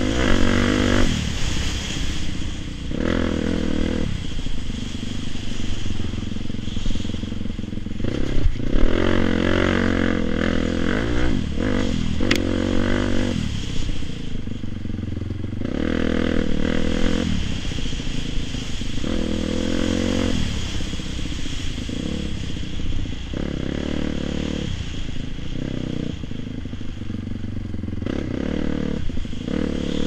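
Dirt bike engine revving up and dropping off again every two to three seconds as the rider works the throttle over rough trail, with occasional knocks and rattles from the bike.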